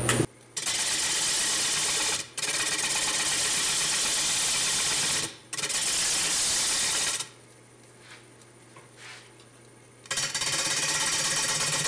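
Turning gouge cutting into the edge of a spinning jatoba (Brazilian cherry) cutting-board blank on a wood lathe, undercutting the rim. A steady hiss of the cut comes in four stretches of one and a half to three seconds, with brief breaks as the tool lifts and a quiet pause of about three seconds past the middle.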